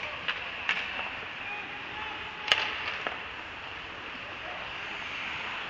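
Ice hockey play in a rink: a steady hiss with several sharp clacks of sticks and puck, the loudest about two and a half seconds in.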